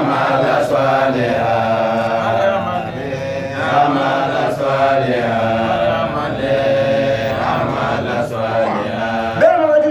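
A man's voice chanting a melodic recitation, with long held notes and short breaks for breath.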